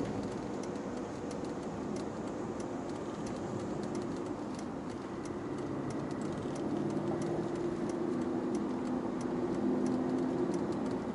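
Car running on the road heard from inside the cabin: a steady drone of engine and tyre noise whose pitch shifts about halfway through, with faint scattered clicks.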